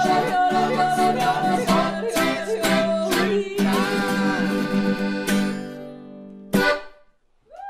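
Closing bars of a Bavarian-dialect protest song performed live, singing over string accompaniment. The last chord is held and fades out over a couple of seconds, then one short sharp stroke and a moment of silence.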